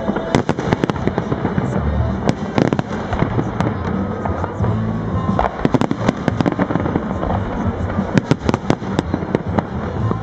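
Aerial fireworks display: rapid volleys of shell bursts, many sharp bangs and crackles coming in dense clusters, over background music.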